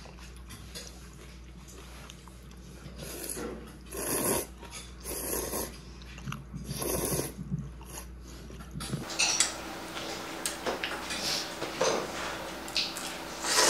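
A person slurping noodles from a bowl of broth: a few drawn-in slurps, the loudest about four seconds in. In the last few seconds there are light clicks and clinks of tableware.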